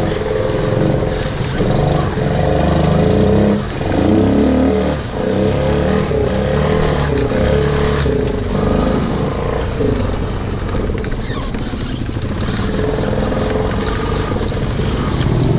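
ATV engine running under the rider's throttle, its speed rising and falling several times as the quad is manoeuvred over rough ground.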